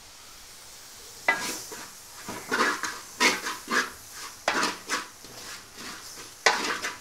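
Wooden spatula stirring fried onion, spice masala and chopped tomato around a metal pot, scraping against the pan in a string of quick strokes that begin about a second in.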